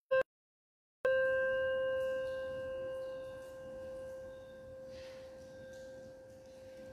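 Small brass hand bell rung once about a second in, tolled as a memorial after a name is read; its clear ringing tone dies away slowly over the next several seconds.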